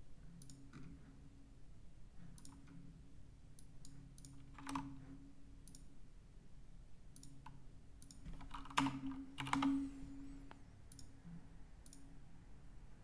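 Scattered computer mouse and keyboard clicks, with a few louder clicks about five and nine seconds in, over a faint steady hum.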